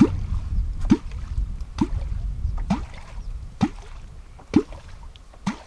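Seven hollow water bloops about a second apart, each a short plop rising quickly in pitch and fading a little toward the end: a catfish clonk struck on the lake surface to draw a wels catfish up.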